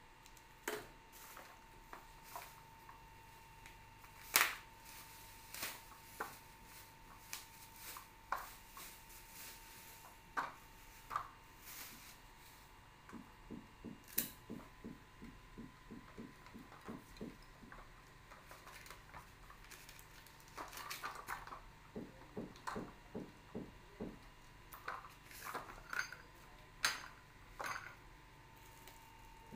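Tricycle parts being handled and set down on a tabletop: scattered knocks and clicks, the loudest about four seconds in. A run of quick ticks comes about halfway through, and plastic wrapping rustles later on. A faint steady high hum runs underneath.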